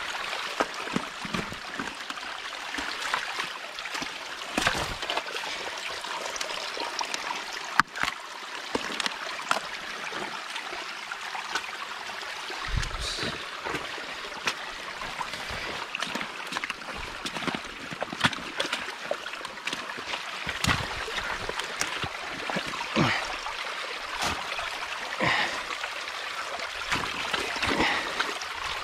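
Water trickling and running through a beaver dam that is being broken open, with scattered knocks and splashes as sticks and mud are pulled out.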